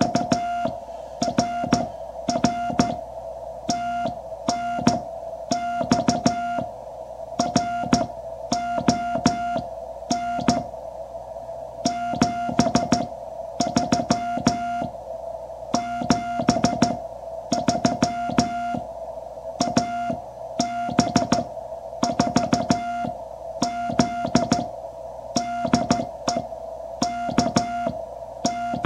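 Morse code (CW) heard through a QRP Labs QCX transceiver: a steady mid-pitched beep keyed on and off in dots and dashes over receiver hiss, with a sharp click as each element starts and stops.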